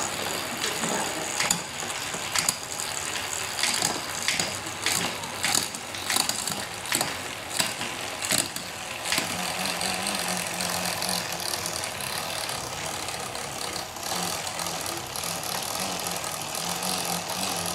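Bicycle drivetrain turned by hand in a workstand: the chain runs over the cassette and rear derailleur as the rear wheel spins. A string of sharp clicks comes about once a second through the first half, then a steady running hum.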